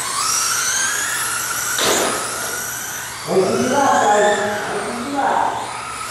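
Electric radio-controlled race cars running laps, their motors whining high and rising in pitch as they accelerate. A sharp knock about two seconds in.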